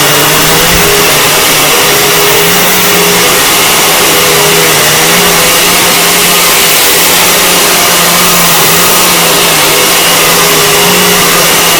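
Vacuum cleaner switched on and running steadily at full power: a loud, even rushing noise with a steady motor hum and whine underneath.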